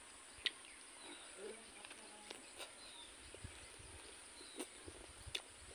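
Close-up eating sounds: scattered sharp mouth clicks and lip smacks as pork blood sausage is chewed, the loudest about half a second in.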